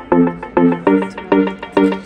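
Background music: a riff of short pitched notes that start sharply and fade, repeating about four times a second.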